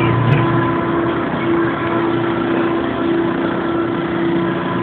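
Kiddie amusement ride running: its motor and turning machinery make a steady hum and rumble.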